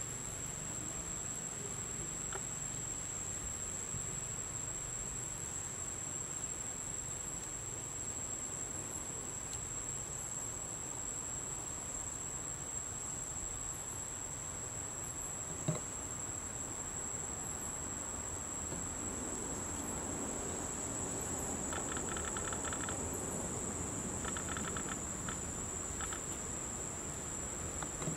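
A steady high-pitched insect drone, joined near the end by another insect's short bursts of rapid chirping, three times. A single sharp click sounds about halfway through.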